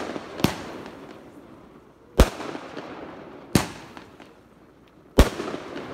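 Aerial fireworks going off: four sharp bangs about a second and a half apart, each trailing off in a fading tail.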